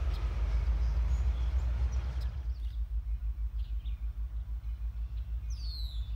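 Tank cars of a freight train rolling past, a steady rushing noise that cuts off about two seconds in. A low pulsing rumble follows, with birds chirping and one descending call near the end.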